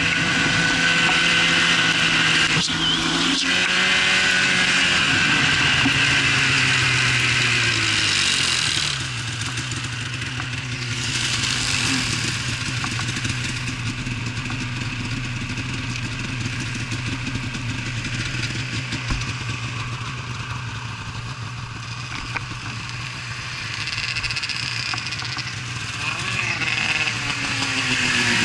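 Snowmobile engines running: one holds a low, steady note after its pitch drops in the first several seconds, and near the end another snowmobile comes up close, its engine note sweeping as it arrives.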